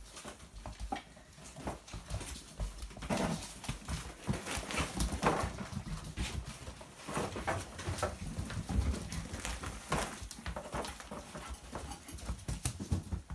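Seven-week-old puppies romping: irregular tapping and scuffling of paws and claws on a laminate floor, with the rustle of the bags they are climbing over.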